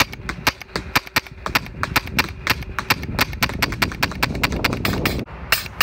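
Tacamo Hurricane spool-valve paintball marker firing a rapid, even string of shots on a remote air line. The firing stops a little over five seconds in, when the paint runs out and the lock bolt keeps the marker from dry firing.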